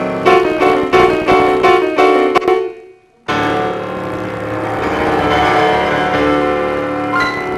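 Piano playing repeated chords, about three a second, that fade and break off briefly about three seconds in. The music then resumes with held notes.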